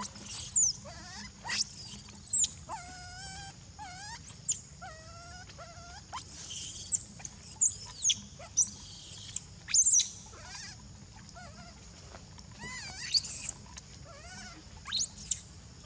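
Young macaque squealing and crying: a string of short, shrill calls that rise and fall in pitch, with a run of lower, whining calls about three seconds in. The calls come in clusters with short gaps between them.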